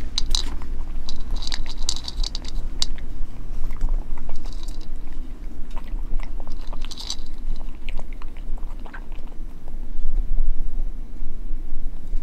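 A cat crunching dry kibble from a bowl, the crunching coming in short bursts every few seconds.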